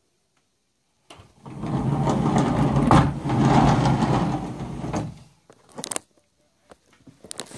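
Sliding barn door rolling along its overhead metal track, a low rumble of about four seconds with a sharp knock midway. A few light clicks follow near the end.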